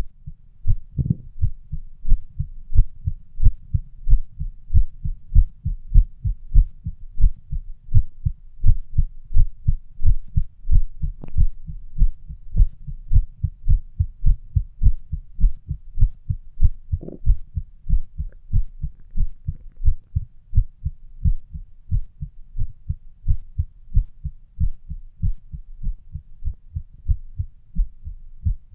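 Fast heartbeat: a rapid, regular train of low thumps, about three a second, with a few sharper knocks now and then.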